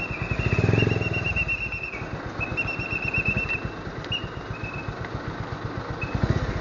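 Motorcycle engine running at low speed, its low rapid pulsing swelling briefly as it revs about a second in. A thin high whistling tone comes and goes over it.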